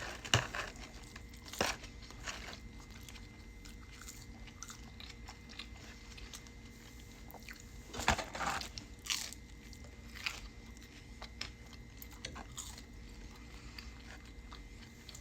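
Close-miked eating of crunchy McDonald's food: crisp crunching bites and chewing, with the loudest crunches in a cluster about halfway through and quieter chewing between.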